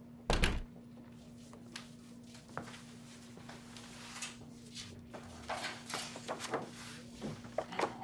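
A single heavy thump about half a second in, then faint scattered rustling and light clicks of papers and a cardboard file folder being handled, over a steady low hum.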